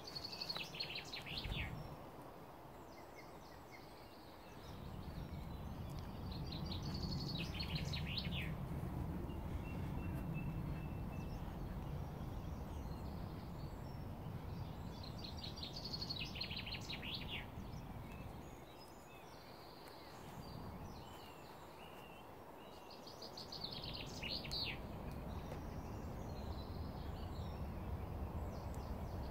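A songbird repeating a short song phrase of quick notes that fall in pitch, about every eight seconds. Underneath, a steady low rumble of background noise eases off twice.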